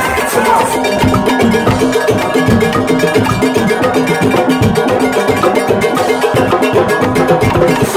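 Live Trinidad carnival engine-room percussion: drums and struck, ringing metal beating a steady, fast rhythm.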